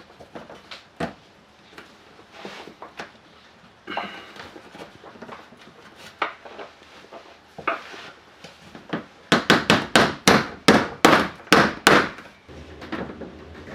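Plastic push-in retaining clips being knocked into a car's front bumper and lip spoiler: scattered light clicks and knocks, then near the end a quick run of about a dozen sharp strikes, about four a second.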